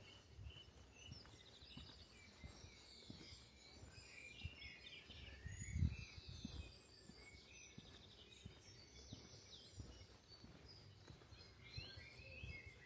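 Several small songbirds chirping and trilling, faint and overlapping. Under them run soft, irregular low thumps of walking footsteps, with one louder bump about halfway through.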